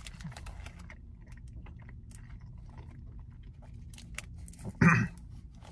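A person chewing a mouthful of chocolate egg with a thick marshmallow filling: faint, soft clicks of the mouth. A short throaty vocal sound comes just before the end.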